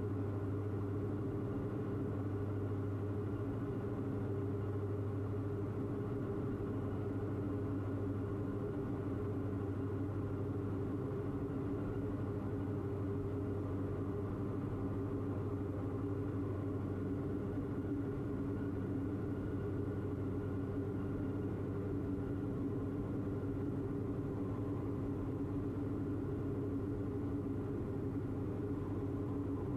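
Diamond DA42 twin's engines and propellers droning steadily in flight, a constant low hum with no change in pitch or power.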